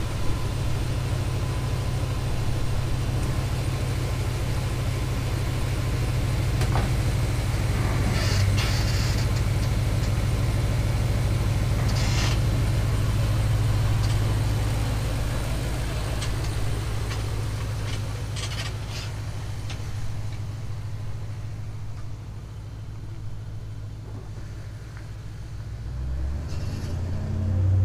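Pickup truck engine running with a steady low hum, while the truck gives a few short creaks, about 8, 12 and 18 seconds in. After about 20 seconds the engine fades as the truck moves off, then rises again near the end.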